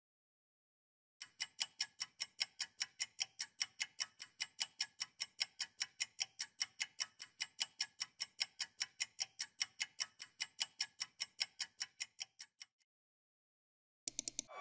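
Clock-ticking countdown sound effect for a quiz timer: a steady run of sharp ticks, about four a second, starting about a second in and stopping a couple of seconds before the end. A few quicker clicks follow near the end.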